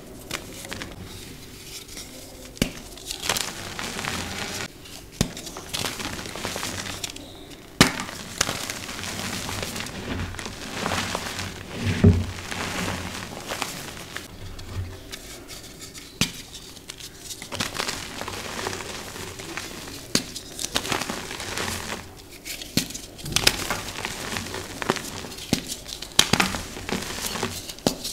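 Hands crumbling, squeezing and rubbing dyed gym chalk blocks and powder: dry crunching and crackling, with occasional sharp snaps as chunks break apart.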